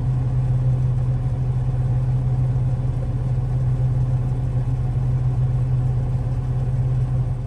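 John Deere Maximizer combine running steadily at working speed as it unloads oats through its unloading auger into a gravity wagon, a constant low engine hum with no change in pitch.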